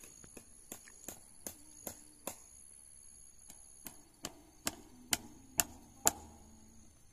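Hammer driving fence staples into a wooden post to fix barbed wire: a series of sharp strikes about two a second, the loudest five or six in the second half.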